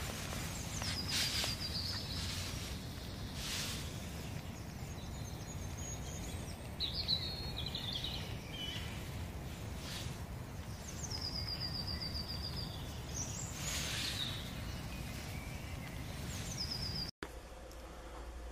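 Outdoor background noise with a steady low rumble, and small songbirds giving short, rapid, high trills several times in the background. The sound cuts off abruptly near the end.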